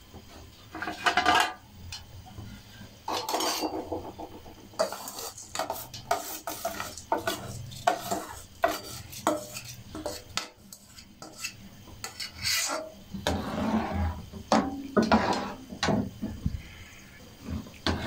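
Steel bowl and metal spoon scraping and clinking as soaked rice is tipped and scraped out of the bowl into a pot of boiling water, in a run of short rasping strokes. Near the end a metal slotted spoon scrapes and stirs in the pot.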